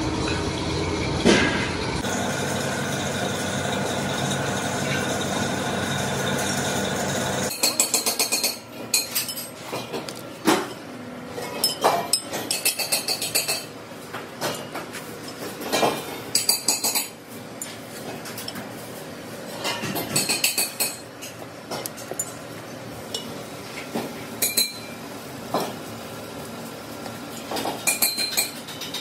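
Brass valves clinking against steel LPG gas cylinders as they are handled and fitted by hand, in scattered bursts of sharp metallic clinks. For the first seven seconds or so a steady droning hum runs, then stops abruptly.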